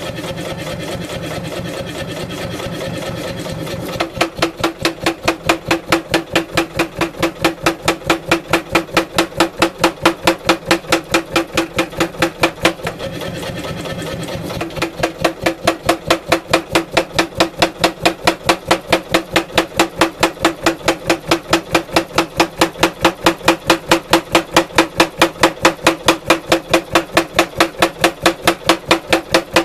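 Power hammer with a 16 kg head striking hot wootz steel in a fast, even rhythm of about four blows a second, each with a metallic ring. The blows are light for the first few seconds, then heavy, and ease off briefly a little before halfway.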